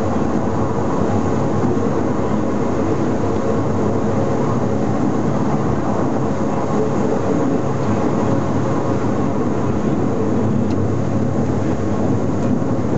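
Electric rack railcar of the Pilatus Railway running along its cogwheel track on a 48% gradient, heard from inside the front cab: a steady rumble with a faint steady hum.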